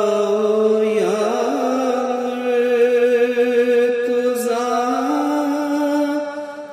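A male voice holds out a long sung note in a nauha, a Shia lament recitation, wavering slightly. Its pitch steps up about a second in and again about five seconds in.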